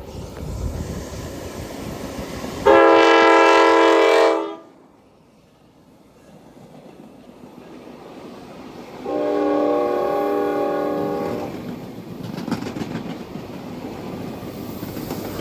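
Amtrak passenger train's air horn sounding two long blasts, each a chord of several tones: the first loud and under two seconds, the second softer and longer, about five seconds later. Two long blasts are the signal that a train is about to move forward. A low locomotive rumble runs underneath.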